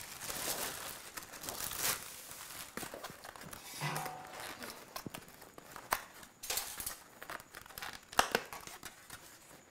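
Thin plastic carrier bag crinkling and rustling in irregular bursts as takeout food is unpacked from it, with a few sharp light knocks.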